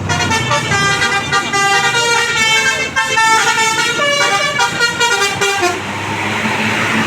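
Tour bus's 'basuri' musical horn (klakson telolet basuri) playing a melody of held notes that step up and down in pitch. The tune stops about six seconds in, leaving a rushing vehicle noise.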